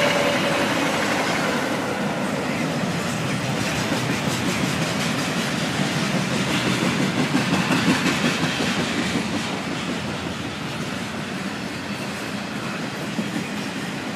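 Double-stack intermodal freight cars rolling past at speed: a steady rumble with wheel clatter over the rails, a little louder about halfway through, as the last cars of an Amtrak passenger train pull away at the start.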